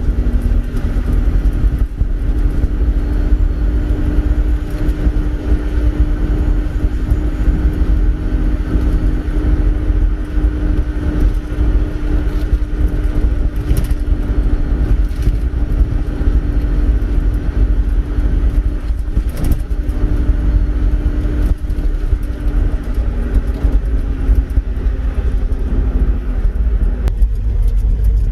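Truck engine running steadily under load with road rumble, heard from inside the cab while driving on a gravel track, with a few brief knocks. The engine note changes near the end.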